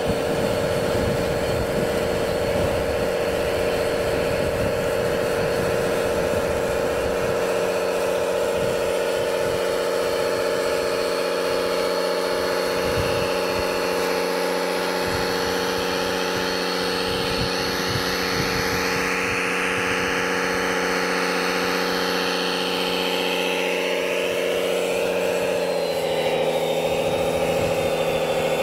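Radio-controlled model construction machine running: a steady engine-like drone of several pitched tones that shifts slightly in pitch near the end, with a fainter higher whine rising and falling in the middle.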